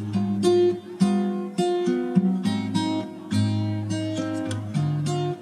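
Background music: an acoustic guitar playing a steady run of plucked notes and chords.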